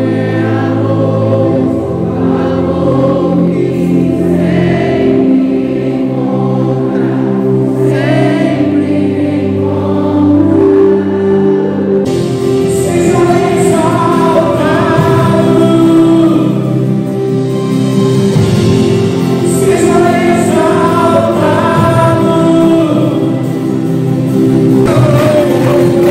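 Live church worship band, with electric and acoustic guitars and keyboard, playing a Christian worship song while many voices sing together; the music jumps abruptly about halfway through, as at an edit.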